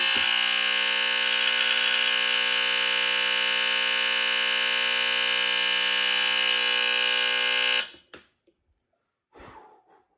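Gillette Captain Kelly 941 line-cord smoke alarm sounding on test: a steady, very loud buzzing alarm tone with many overtones, which cuts off suddenly about eight seconds in.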